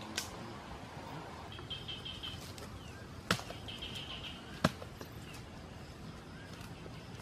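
A bird calling in two short, rapid, high trills, with three sharp clicks or snaps, the loudest sounds, scattered among them.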